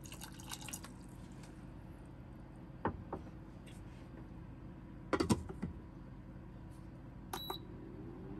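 A few light knocks and clatters of things being handled, the loudest a quick cluster about five seconds in, over a steady low hum. Near the end a brief high electronic beep sounds.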